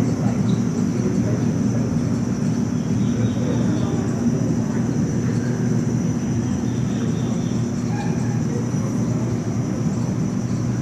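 Steady low hum of an aquarium hall's background noise, with a faint high whine and a murmur of distant voices.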